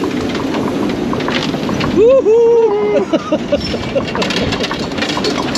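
Funfair din: many voices over a steady rumble of rides, with one loud drawn-out shout about two seconds in.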